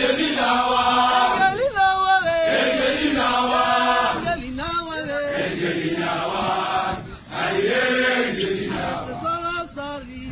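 A large group of Botswana Defence Force soldiers singing a chant-like song together in unison, with long held notes.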